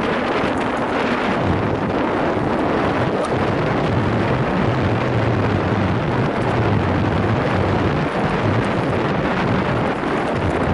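Steady rush of wind buffeting an action camera's microphone as a mountain bike descends a dirt trail at speed.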